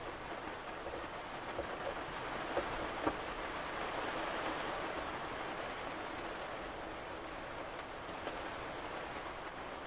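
Steady rain falling on the roof of a 1998 Lance Squire 3000 truck camper, heard from inside, with a few sharper drops ticking and one louder tap about three seconds in.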